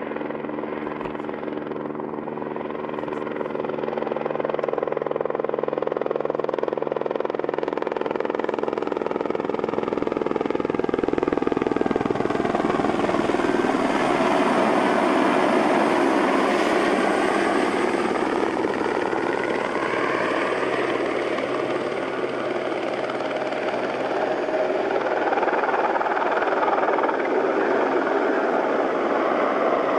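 A light helicopter flying close by, its rotor and engine noise growing louder over the first dozen seconds and staying loud, with the pitch wavering and gliding as it manoeuvres low nearby.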